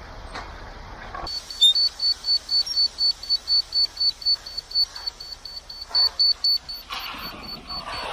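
Rotating-laser grade receiver beeping rapidly, a high short beep about five times a second, starting about a second in and stopping near the end, as the receiver on a grade stick picks up the laser beam.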